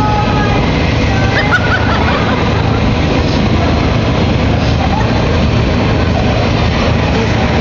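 Hurricane simulator booth blowing: a loud, steady rush of fan-driven wind buffeting the phone's microphone, over a low, steady hum.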